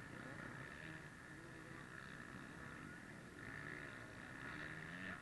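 Off-road motorcycle engines racing across a dirt track, faint with distance, their pitch rising and falling as the riders open and close the throttle, swelling somewhat after the middle.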